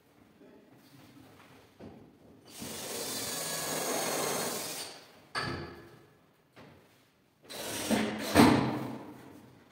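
Power drill running in two short bursts, the first about two and a half seconds long and the second shorter, with a sharp knock between them and another near the end of the second burst.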